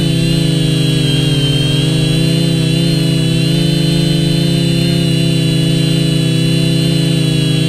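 Quadcopter's electric motors and propellers buzzing steadily, heard close through the onboard camera, with several tones that drift slightly up and down in pitch as the throttle is adjusted.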